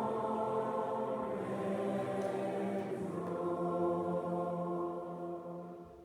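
A choir singing long, sustained notes, fading away near the end.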